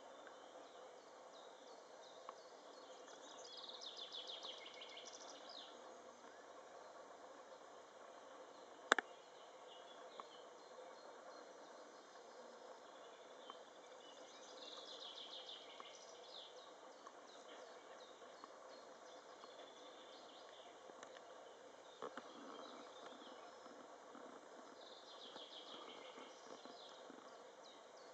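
Faint outdoor background in which a small bird sings a short, fast, chirpy phrase three times, about ten seconds apart. A single sharp click stands out about nine seconds in.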